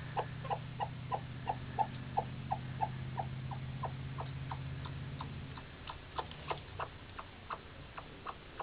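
Broody white hen sitting on her nest, giving a steady run of short clucks at about three a second: the cluck-cluck-cluck of a hen that wants to set her eggs. A low hum runs underneath and stops a little over halfway.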